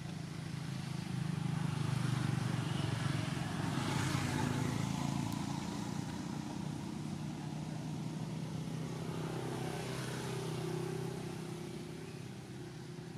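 A motor vehicle's engine running steadily, a low hum that swells over the first few seconds and eases off near the end.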